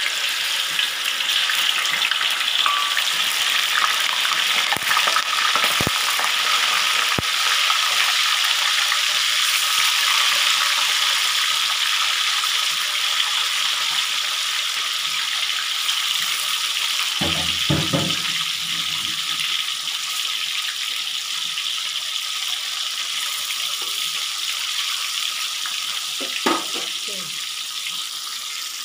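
Tofu cubes frying in hot oil in a wok: a steady, loud sizzle that eases a little over time.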